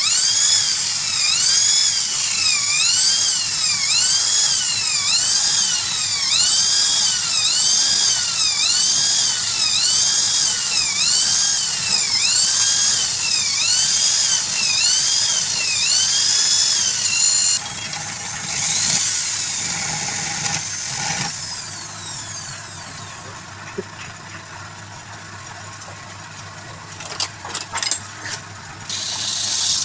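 High-pitched power-tool motor whose pitch rises and falls about once a second, as though it is pressed into the work and eased off over and over. It cuts off about two-thirds of the way in, winds down with a falling whine, and a few light knocks follow near the end.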